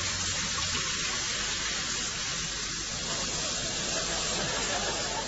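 Steady hiss of water running from a washbasin tap.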